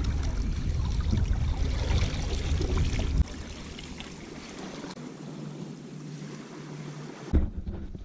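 Shallow river water splashing and sloshing as hands work in it, checking a small fish trap, over a low rumble that stops about three seconds in. A couple of knocks near the end as the camera is handled.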